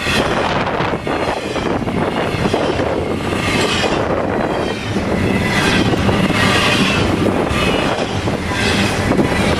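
Long double-stack intermodal container train rolling past at track speed: a steady loud rumble of wheels on rail with clattering, and now and then a thin squeal.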